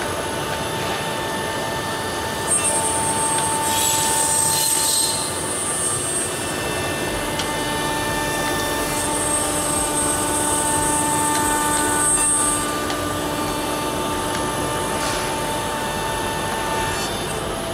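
SM-1325R1B CNC nesting router running, with a steady machine hum. A high whine comes in twice for a few seconds each, with a short rush of cutting noise about four seconds in.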